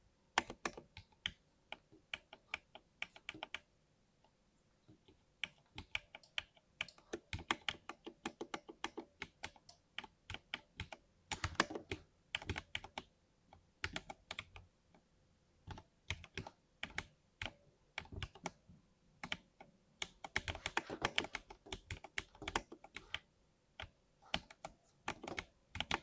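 Typing on a lubed 60% mechanical keyboard: runs of quick, sharp keystrokes in irregular bursts, with a pause of about a second and a half a few seconds in.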